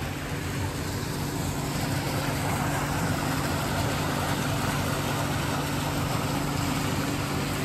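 Steady low hum over an even hiss, the background drone of a large airport terminal hall's ventilation.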